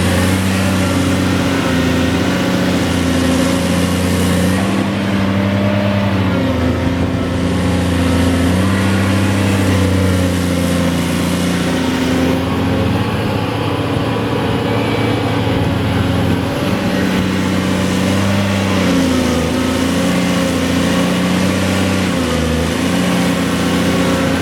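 Cat 330D L hydraulic excavator's C9 diesel engine running loudly and steadily, its note dipping and recovering several times as the hydraulics take and shed load.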